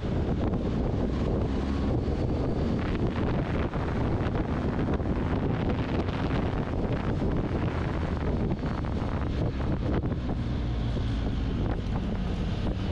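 Steady wind buffeting the microphone of a motorcycle moving at road speed, with the bike's engine running underneath.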